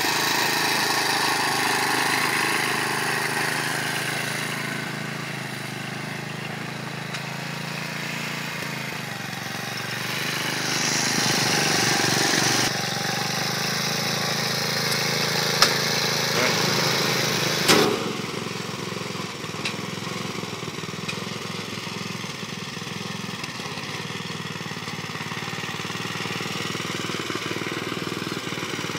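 Walk-behind tractor engine running steadily. Its sound changes abruptly twice past the middle, and there are two sharp knocks.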